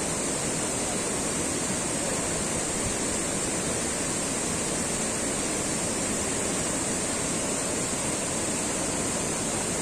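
Steady rushing of a mountain stream running over rocks and into stone-lined pools.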